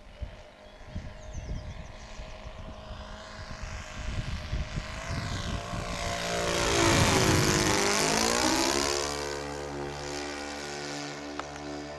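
Radio-controlled P-38 Lightning model's twin ASP four-stroke engines in a fly-by. The sound builds to a loud pass about seven seconds in, drops in pitch as the model goes by, then settles into a steady drone as it climbs away.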